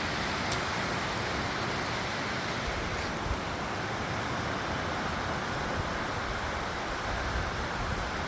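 Strong wind blowing steadily: a rushing hiss, with wind buffeting the microphone in a low, unsteady rumble.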